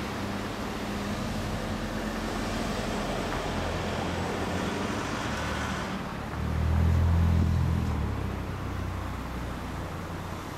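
Honda Monkey's Takegawa 107cc single-cylinder four-stroke engine running through an OVER Racing exhaust, holding a steady idle. About six seconds in it gets louder for a second or two, then settles back.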